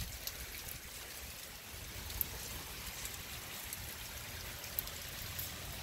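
Light, steady rain falling, with a few sharp drip ticks scattered through it.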